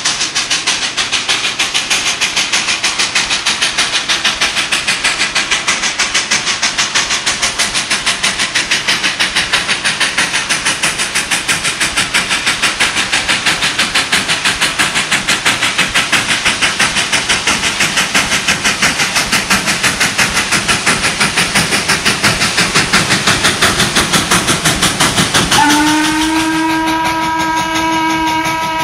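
Steam locomotive Tremont & Gulf #30 working toward the listener, its exhaust chuffing in a fast, steady rhythm that grows slightly louder as it nears. Near the end its hooter whistle sounds, a steady chord of several notes.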